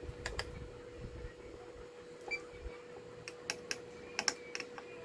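Sharp clicks and taps of test probes and a multimeter being handled on a workbench, two near the start and a quick cluster near the end, with one short electronic beep a little past two seconds in. A faint steady tone runs underneath.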